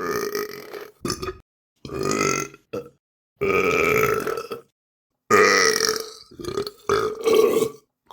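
A person burping, a series of about eight burps cut one after another with silent gaps between, some short and a few drawn out for about a second.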